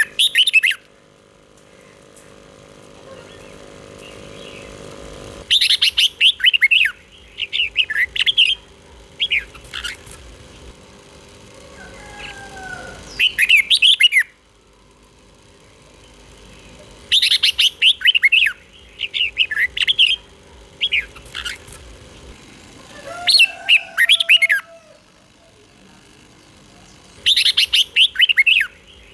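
Red-whiskered bulbul singing: short bursts of quick, bubbling whistled phrases, often in pairs, repeated every few seconds with pauses between.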